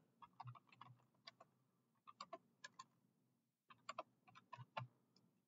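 Faint clicking of computer keyboard keys being typed, in three short runs with pauses of about a second between them.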